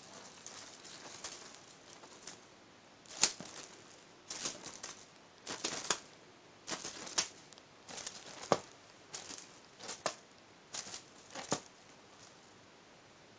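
Cat play on a cloth bedspread: about nine short rustling scuffs, from about three seconds in until near the end, as paws scrabble on the fabric and a teaser toy swishes. No voices or meows.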